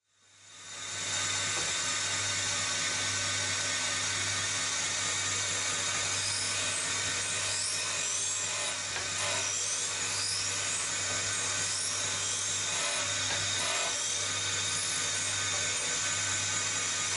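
Eagle Mk1 surface grinder's abrasive wheel grinding the steel top of its magnetic chuck: a steady hiss of wheel on metal over the hum of the spindle motor. It fades in over the first second, then holds steady.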